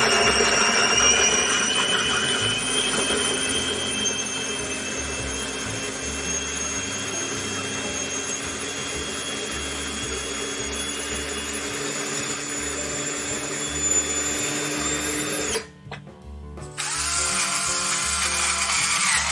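Electric food processor motor running steadily as it purees a tomato-almond pesto, its whine rising slightly in pitch. It cuts off suddenly about three-quarters of the way through.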